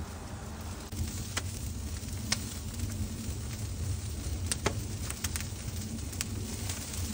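Ribs and wings grilling over the open fire of a Santa Maria grill: a steady sizzle and fire noise over a low rumble, with scattered sharp crackles and pops from the fire.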